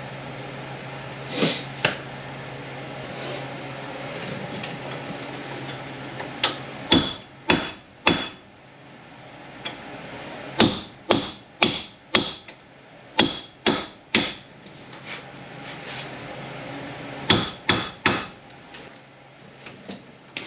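Hammer blows on metal during a truck front wheel hub replacement: sharp ringing strikes in runs of three to eight, about two a second, with pauses between, over a faint steady low hum.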